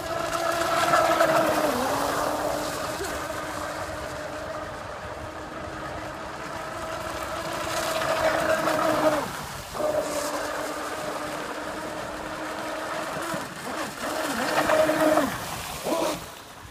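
Radio-controlled speedboat running fast on the water: a steady, high motor whine with a hiss of spray. The whine drops out briefly about halfway through and several times near the end.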